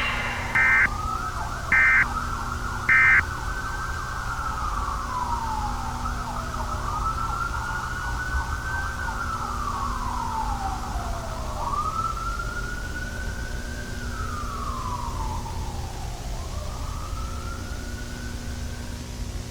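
Three short loud beeps about a second apart, then a slow wailing siren that rises and falls in pitch, about five seconds a cycle, over a steady low hum.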